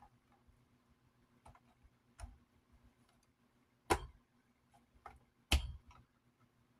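Light clicks and taps of hand tools on metal, with two sharper knocks about four and five and a half seconds in, from working at a stuck screw in a small desk fan.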